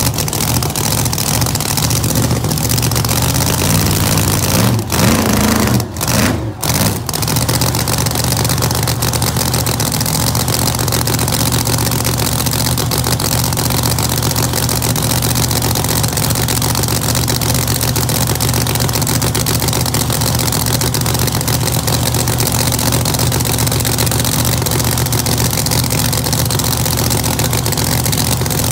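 Holden HG drag car's race engine idling loudly and steadily at a standstill, with a short rise and a few brief dropouts about five to seven seconds in.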